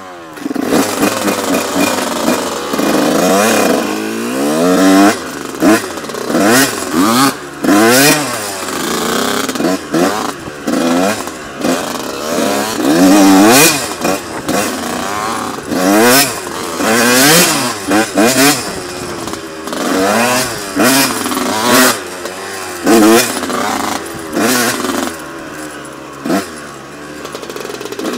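Honda CR125's single-cylinder 125 cc two-stroke engine revving up and falling back again and again as it is ridden hard around a motocross track, with frequent short bursts of noise over it.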